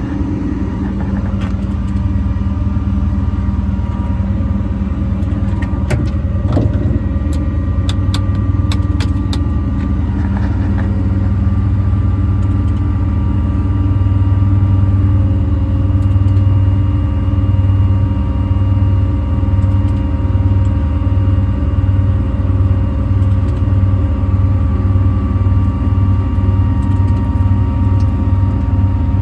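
Service truck's air compressor running with a steady engine drone. About halfway through, a regular low throb sets in, a little more than once a second. A few sharp clicks come in the first third.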